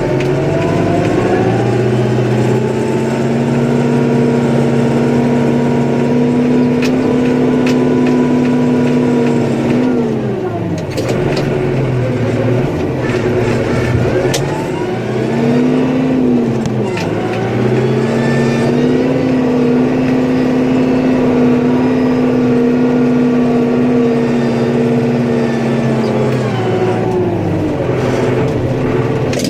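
Snowplow vehicle's engine revving while plowing snow. It revs up and holds steady for several seconds, drops back about ten seconds in, then revs up again, dips briefly, holds steady, and drops back near the end.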